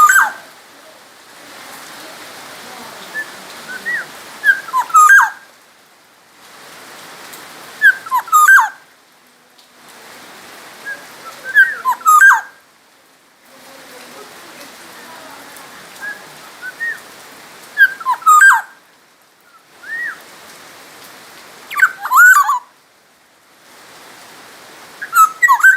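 Black-naped oriole singing: short, loud, fluty whistled phrases with gliding notes, repeated about every three to four seconds. A steady hiss like rain runs beneath and breaks off briefly after each phrase.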